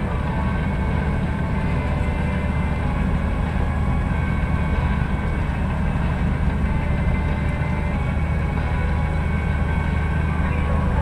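Steady low rumble of a four-wheel-drive vehicle driving over a rough dirt track, engine and tyre noise heard from on board, with faint steady whines above the rumble.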